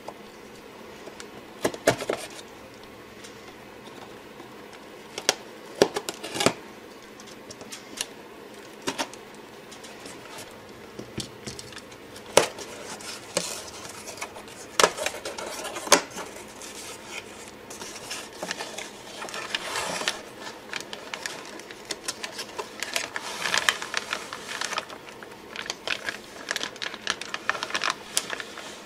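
Packing tape on a cardboard shipping box being slit with a pocket knife and the box being opened: scattered sharp scrapes, clicks and taps, turning to busier rustling of cardboard flaps and plastic wrapping in the second half.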